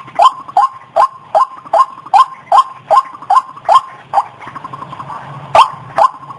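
White-breasted waterhen (ruak-ruak) calling: a rapid, even series of short, sharp falling notes, about two and a half a second. The series breaks off a little past the middle for about a second and a half, then starts again.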